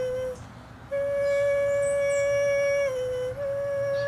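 A woman's voice singing long held tones without words, steady and pure in pitch. One note ends just after the start and, after a breath, a slightly higher note is held for about two seconds, dips briefly near the three-second mark, and returns.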